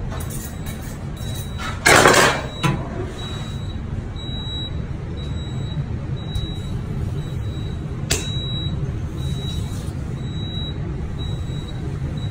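Steady low hum of a kitchen extractor hood. About two seconds in there is one loud swish of a knife drawn along a honing steel, then a short sharp tick past the middle.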